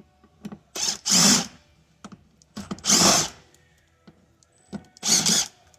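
Power drill with a T30 Torx bit running in three short bursts of about half a second each, backing out the screws that hold the speaker port in the Jeep Wrangler's sound bar.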